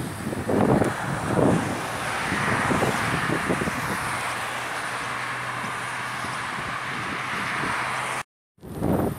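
Road traffic going by, with a steady tyre and engine rush and a low engine hum in the middle. Wind buffets the microphone during the first second or two. The sound cuts out briefly near the end.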